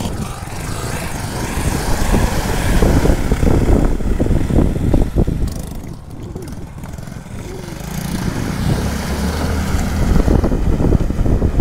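Small Honda C90 motorcycle engine running under heavy wind buffeting on the microphone. From about eight seconds in it gets louder as the bike ploughs through a deep puddle, with water splashing.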